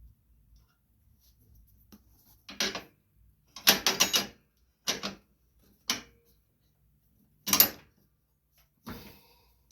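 Metal clanks and clinks as steering parts and hand tools are handled, about six separate clatters with a quick cluster of several about four seconds in.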